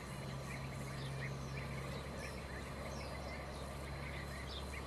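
Outdoor ambience: scattered short high chirps over a steady low hum that stops near the end.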